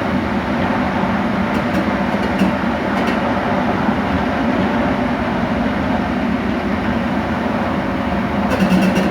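Train running along the track: a steady rolling rumble with a low hum, and a quick run of sharp clicks starting near the end.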